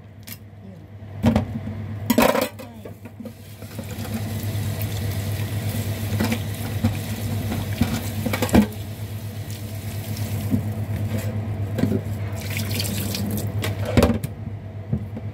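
A knife cutting corn kernels off the cob knocks a few times on a wooden cutting board, then from about four seconds in a kitchen tap runs steadily into a sink, with a few clinks. A steady low hum sits underneath.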